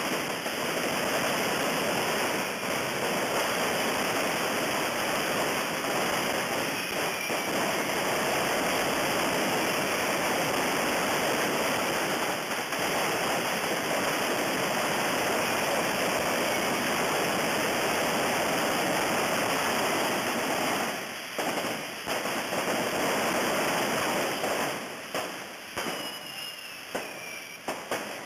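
Many hand-held fireworks rockets (coets borratxos) hissing together in one dense, continuous rush of sparks. About 21 seconds in, the rush breaks up into separate rocket hisses, sharp pops and a few short falling whistles.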